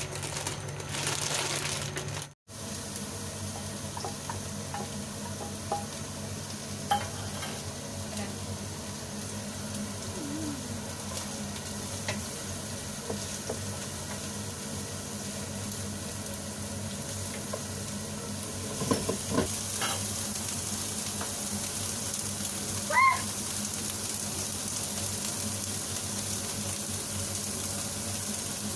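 Diced onions frying in a nonstick pan, a steady sizzling hiss, with a few light utensil knocks and a brief high squeak about two-thirds of the way through. The opening couple of seconds are boiling pasta being stirred with a wooden spoon before an abrupt cut.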